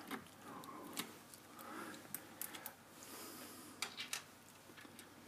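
Faint, scattered small clicks and taps of a screwdriver and small metal parts being handled while taking apart a 3D printer's extruder.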